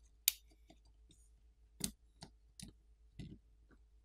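Faint scattered clicks and taps of fingers handling a smartphone's main board as it is lifted out of the phone's frame: one sharper click about a third of a second in, then four or so lighter ones.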